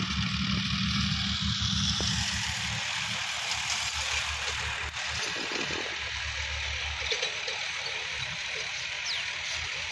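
Diesel engine of a Sonalika DI-50 RX tractor running under load as it pulls a rotary tiller, a low, steady throb under a broad hiss.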